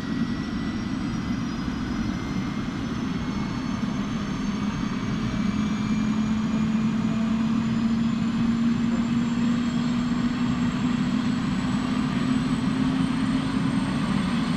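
Small camera drone's propellers whining steadily in flight, with high tones that slowly rise in pitch.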